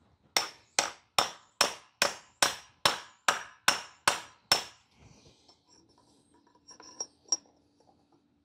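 A hammer striking a piece of pipe set on the bearing race, driving a carrier bearing down onto a new drive shaft. Eleven sharp metallic blows come at about two and a half a second, each ringing briefly, then a pause and two lighter taps near the end.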